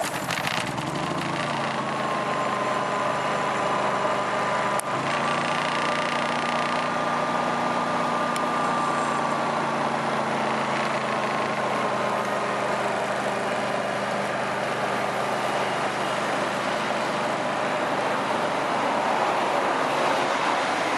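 Honda EU30i inverter generator, its GX160K1 single-cylinder engine running steadily, with a single click about five seconds in.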